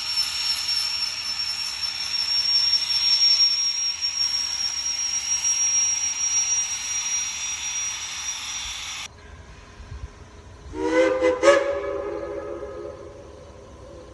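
Steam locomotive Number 4 hissing steam loudly and steadily, with a high-pitched edge, until the hiss cuts off suddenly about nine seconds in. About two seconds later its multi-note steam whistle sounds in two quick toots and then a short held blast that fades away.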